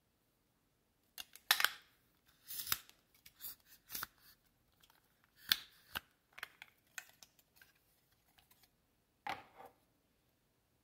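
Clicks and scrapes of plastic and metal as a selfie stick tripod is handled: its telescoping metal rod is slid and its plastic phone clamp folded out on its hinge. A single knock comes near the end as the tripod is stood on the table.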